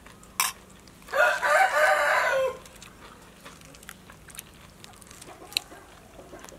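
A rooster crows once, starting about a second in and lasting about a second and a half, ending on a falling note. A sharp click comes just before it and another near the end.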